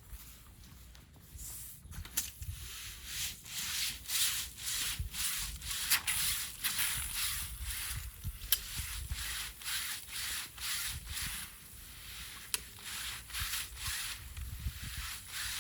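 Bristle brushes scrubbing a wet vinyl window screen in a water-fed screen washer: repeated rasping strokes, about two a second, with a few sharp clicks.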